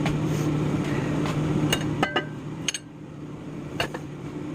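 A steady low mechanical hum, like a running household appliance, with several sharp clicks and knocks scattered through it; the hum drops off a little under three seconds in.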